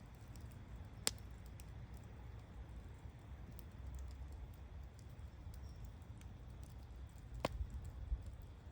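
Wood bonfire crackling: scattered faint ticks with two sharp pops, one about a second in and one near the end, over a low rumble.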